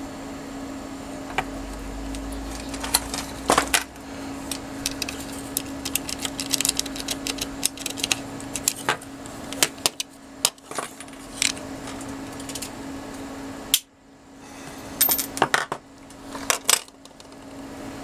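Hand tools and a circuit board being handled: irregular clicks, taps and light clatter over a steady low hum.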